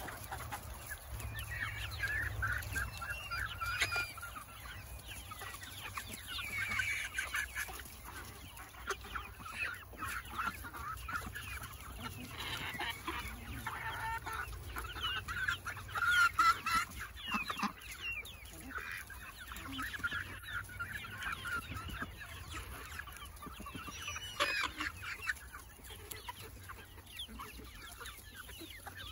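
A flock of hens clucking steadily as they feed together, many short calls overlapping throughout.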